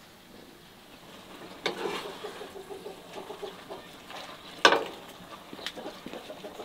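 A chicken clucking: a quick run of short clucks starting about two seconds in. About halfway through comes one loud, sharp, short sound.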